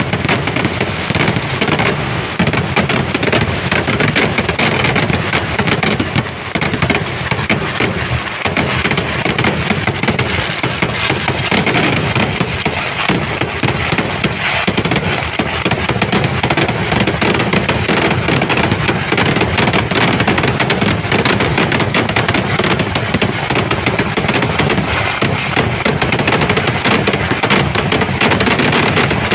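Kerala temple-festival fireworks (vedikkettu): a dense, unbroken barrage of explosions, countless bangs running together without a pause.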